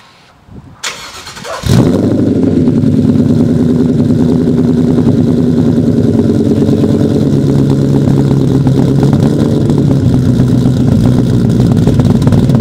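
2014 Ford Mustang GT's cammed 5.0 L V8, breathing through longtube headers, an H-pipe and SLP Loudmouth axle-back mufflers, starts up less than two seconds in and settles into a loud, steady idle.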